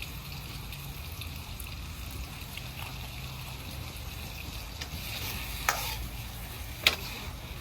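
Tomato and egg being stir-fried in a wok: a low, steady sizzle. Two sharp knocks come about a second apart near the end.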